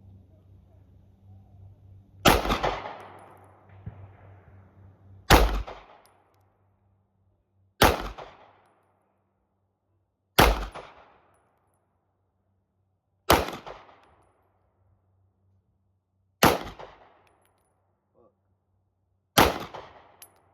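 Seven single shots from a 9mm PSA Dagger pistol, fired slowly about every two and a half to three seconds, each crack followed by a short fading echo.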